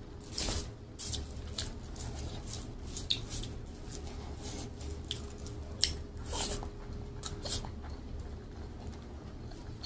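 Close-miked eating by hand: wet smacking and clicking of chewing, with fingers squishing and mixing cooked rice. Short irregular clicks come one after another, a few of them sharper than the rest.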